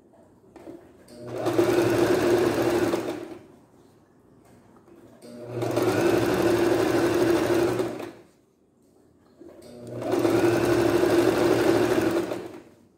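Singer electric domestic sewing machine stitching a hem, running in three bursts of about two to three seconds each with short pauses between them while the fabric is adjusted.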